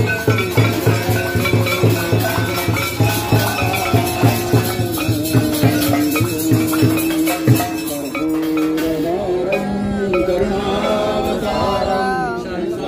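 Temple aarti music: a large drum on a stand beaten in a rapid, even rhythm with bells and cymbals clashing along. The drumming stops about seven to eight seconds in, and voices singing the aarti chant carry on.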